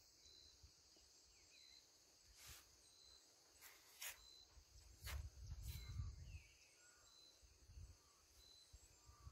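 Faint chorus of jungle insects: a steady high-pitched buzz with a short, high chirp repeating at an even pace, under a second apart. A few faint clicks and a low rumble come about five to six seconds in.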